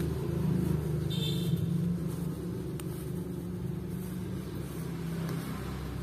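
A low, steady motor rumble with a hum.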